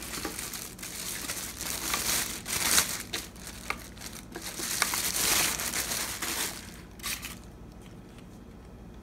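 Clear plastic packaging bag crinkling and rustling as a radio controller is pulled out of it, in irregular handling bursts that die down after about seven seconds, leaving a couple of light clicks.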